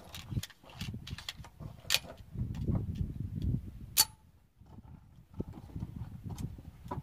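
Irregular light knocks and clicks over a low rumble, with two sharper clicks about two and four seconds in.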